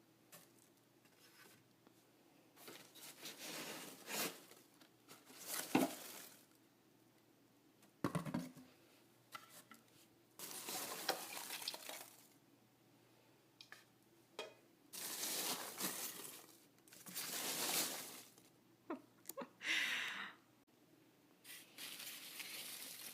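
Packaging rustling and crinkling in irregular bursts of a second or two as the parcel is unpacked, with a few small clicks and knocks between them.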